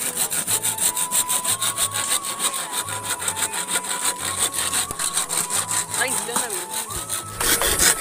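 Hand saw cutting through a green bamboo pole in quick, even back-and-forth strokes, several a second, a little louder near the end.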